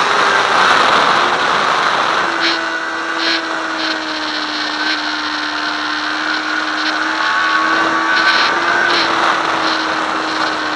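Sport motorcycle engine running at speed, heard from a handlebar-mounted camera with heavy wind rush over the microphone. The engine note holds fairly steady and sinks slowly near the end.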